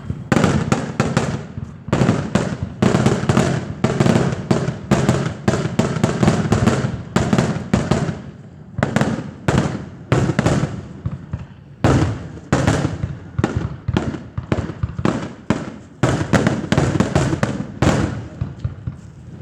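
Fireworks display: a rapid, continuous barrage of aerial firework bangs and booms, several a second, with a brief lull about nine seconds in.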